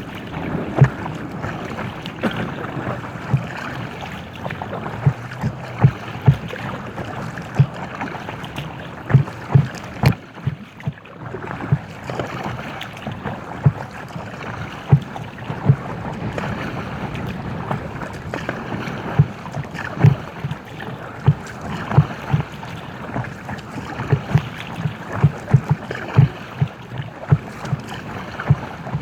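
Paddling an inflatable kayak: paddle strokes in the water with frequent dull knocks, over a steady wash of water and wind noise.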